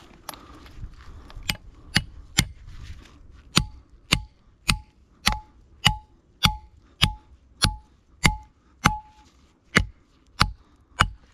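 Hammer driving a steel anchor dowel into a hole drilled in rock: about sixteen sharp metallic blows, nearly two a second, most with a short ringing tone.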